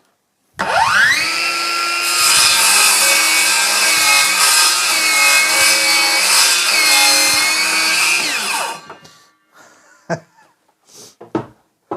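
Ryobi R18CS7-0 18V brushless cordless circular saw, on a standard 5 Ah battery, spinning up with a rising whine about half a second in. It then cuts through wood for about seven seconds, its pitch dipping now and then under load. It winds down with a falling whine, and a few light knocks follow near the end.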